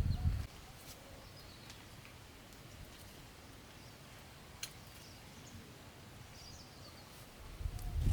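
Quiet outdoor country ambience with faint high bird chirps and a few small clicks, one sharper click a little past halfway. A low rumble fills the first half second and comes back near the end.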